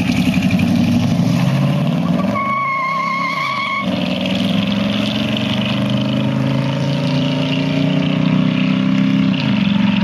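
Pickup truck engine accelerating hard, its pitch climbing through each gear and dropping at the upshifts, around two seconds in and again about nine seconds in. A brief high whine sounds over it for about a second and a half early on.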